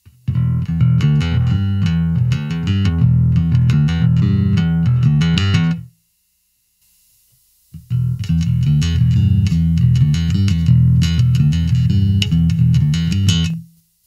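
Fender Deluxe Active P Bass played solo through a combo amp: a quick phrase of plucked notes lasting about six seconds, cut off sharply, then after a pause of almost two seconds a second, similar phrase that also stops sharply.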